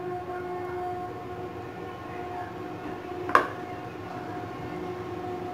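A steady, even hum runs throughout, with one sharp tap about three and a half seconds in, a knock on the ceramic plate as a chicken drumstick is pressed into the flour coating by hand.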